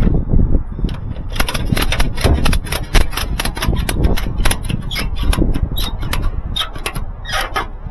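A fast, irregular run of sharp clicks and clatters, like hard objects being handled, over a steady low rumble.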